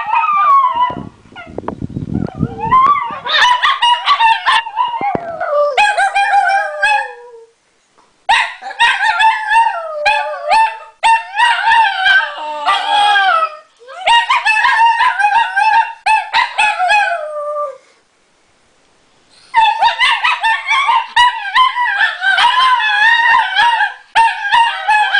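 Two Italian greyhounds howling together, high wavering howls overlapping one another, each dog setting the other off. The howling comes in four bouts broken by short pauses, the longest pause about two-thirds of the way through.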